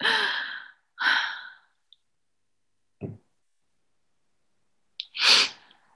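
A woman's breathy exhales over a video call: two close together at the start and one more about five seconds in, with a short low knock near three seconds and dead silence between.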